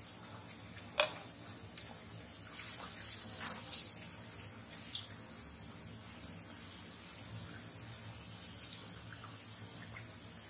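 Jaggery patties deep-frying in hot oil in a wok: a steady sizzle. A sharp tap about a second in, and a few lighter taps, as the patties are handled with a wire strainer.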